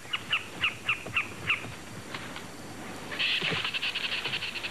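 Squirrel alarm calls at a leopard: a run of sharp chirps, about four a second, each falling in pitch, then after a short pause a rapid high chattering near the end.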